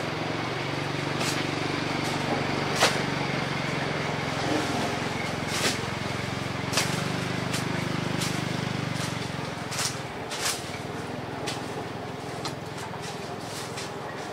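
A motor running with a steady low hum that fades out about ten seconds in, with scattered sharp clicks and knocks over it.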